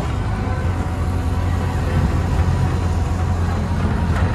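Auto-rickshaw's single-cylinder engine running steadily with the vehicle under way, heard from inside the open passenger cabin together with road and traffic noise.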